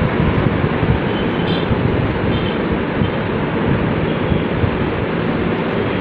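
Steady loud rushing noise, with a couple of short faint high-pitched tones about one and a half and two and a half seconds in.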